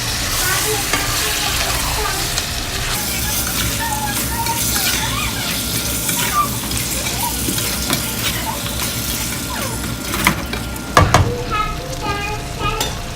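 Chicken livers sizzling in a hot pan of spicy butter-garlic sauce while being stirred, with a few sharp knocks of the spoon against the pan near the end.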